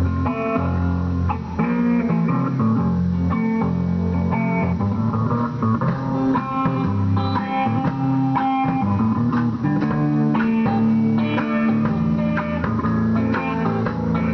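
Live electric blues instrumental: electric guitar playing over a drum kit, with strong low notes under changing guitar lines and no singing.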